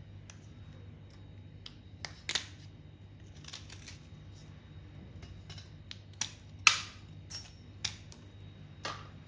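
A small metal scraper blade scraping the grooves of a wet white clay piece, in about a dozen short, crisp strokes with pauses between them. The loudest stroke comes about two-thirds of the way through.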